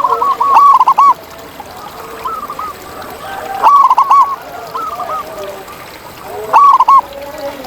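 Zebra doves cooing: quick runs of short, arched, ringing notes, a loud phrase about every three seconds with fainter phrases between, and lower, softer calls from other birds underneath.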